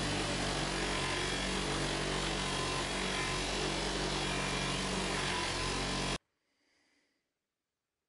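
Bench grinder running with a pocket knife blade held against its spinning wheel: a steady motor hum under a dense rough rushing noise. It cuts off suddenly about six seconds in.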